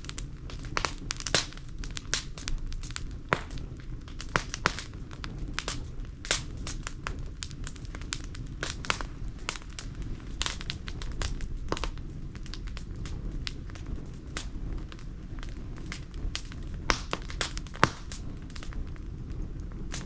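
Fire burning in a washing-machine drum, crackling with irregular sharp pops over a low steady rumble; a few louder pops come about a second in and again near the end.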